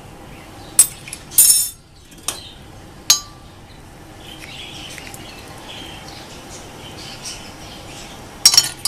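Metal spoon clinking against a jug: a few separate clinks in the first three seconds, a quiet stretch, then quick repeated clinking near the end as the spoon starts stirring syrup into the water.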